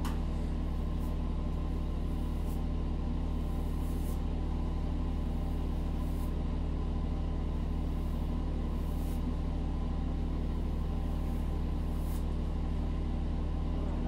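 Steady low machine hum, with faint swishes of a detangling brush pulled through wet hair every couple of seconds.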